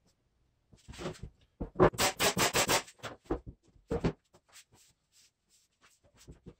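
A quick run of short rubbing strokes, about six a second, followed by a few single strokes.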